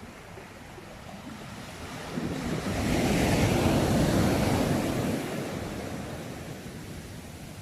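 Ocean waves: one wave swells into a rushing surge of surf about two seconds in, peaks, then washes back and fades to a low steady wash.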